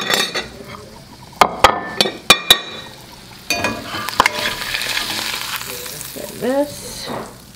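A few sharp metal clinks of utensils and cookware, then a fried egg sizzling in a small skillet of butter and a little water as a metal spatula slides under it, the hiss starting about halfway through.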